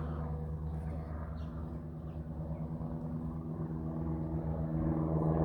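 Steady low hum of a running motor or engine, holding one pitch and growing somewhat louder toward the end.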